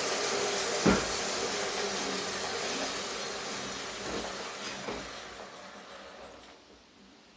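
Homemade sawmill winding down, its steady hissing running noise fading away over about six seconds, with a sharp knock about a second in and a couple of fainter clicks later.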